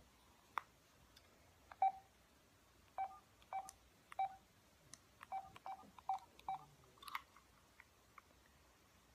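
Smartphone keypad tones as a number is dialled: about ten short beeps at an uneven pace, with a few faint taps among them.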